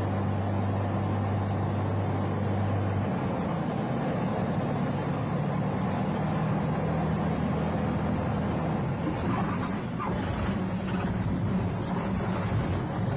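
Light aircraft engine droning steadily over a constant rush of noise, with a low hum that drops out and shifts pitch about three seconds in.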